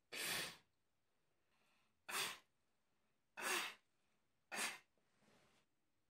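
A person's breath, close by: four short, sharp blasts of air at uneven spacing over about five seconds, with quieter inhales before the first two and a fainter fifth blast near the end.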